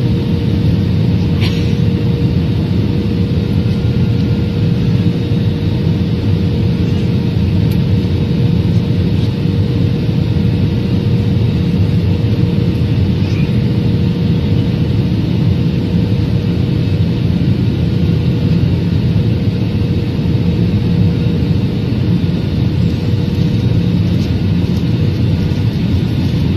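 Steady cabin noise of a jet airliner in flight: a constant drone of engines and airflow, with a faint steady hum.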